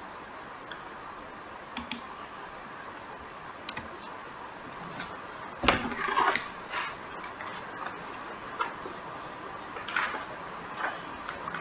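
Steady background hiss with scattered, irregular faint clicks. A louder cluster of knocks and rustling comes about six seconds in.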